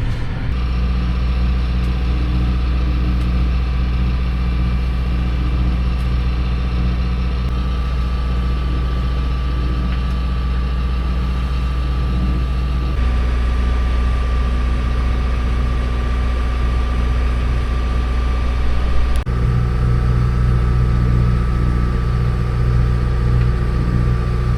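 Sailboat's inboard auxiliary engine running steadily under way, a constant low drone with a thin steady whine above it.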